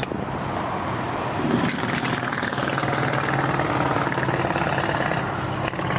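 A car engine running, with a steady low hum that sets in about two and a half seconds in.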